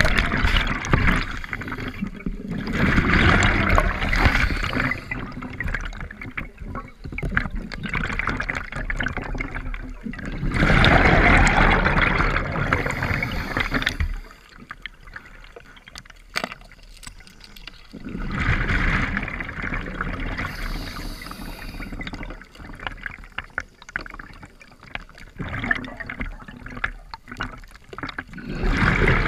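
Scuba diver's exhaled bubbles rushing and gurgling past the underwater camera in spells of a few seconds, several seconds apart, with quieter stretches between breaths. The loudest spell comes about halfway through.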